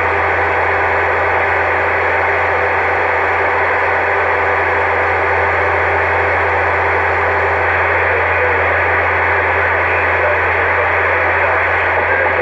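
CB radio putting out a steady hiss of static with a constant low hum under it, no voice on it, while a strong signal holds the signal meter high.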